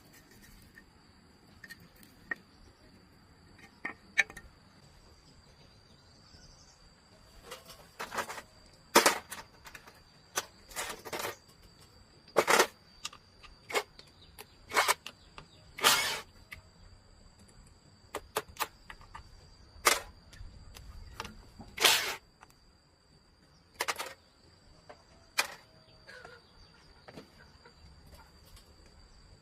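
Irregular sharp knocks and clicks, about a dozen spread over the half-minute and a few of them much louder than the rest, over a faint steady high-pitched tone.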